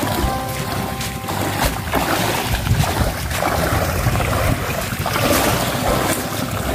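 Feet splashing through shallow sea water at the shoreline, under wind rumbling on the microphone.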